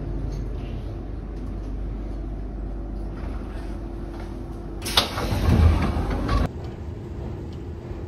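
Athens Metro train carriage running with a steady low rumble inside the car. About five seconds in there is a sharp clunk and a loud rush of air as the sliding passenger doors open, cut off abruptly about a second and a half later.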